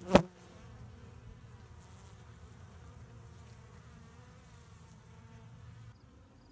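Honeybees buzzing in a steady hum at a hive entrance under a robbing attack, as robber bees try to get in past the defenders. A sharp knock comes just after the start, and the buzz drops away about six seconds in.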